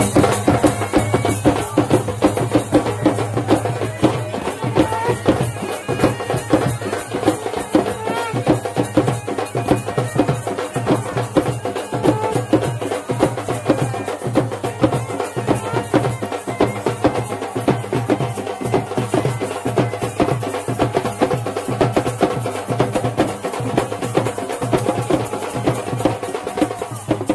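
Loud traditional folk music: fast, steady drumming with a wavering, reedy melody over it.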